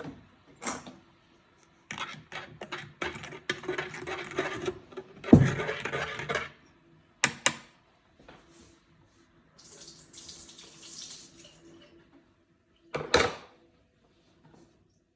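Making coffee in a kitchen: water running into a sink or vessel, with knocks, clinks and a heavy thump about five seconds in as cups and things are handled.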